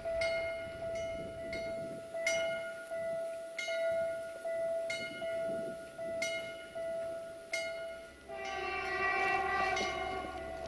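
Level crossing warning bell ringing in a steady repeating pattern. About eight seconds in, the horn of an approaching Wadloper diesel multiple unit sounds for about two seconds over it.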